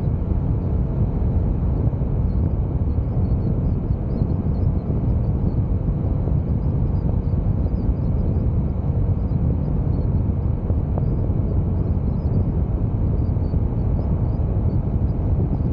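Onboard sound of a Honda CBR motorcycle cruising at a steady speed: the engine drones evenly under a heavy, low rush of wind and road noise on the microphone, with no rev changes.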